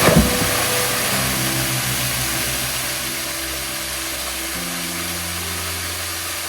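Background music of slow, held low notes over the constant rushing hiss of a waterfall, with one brief loud burst of noise right at the start.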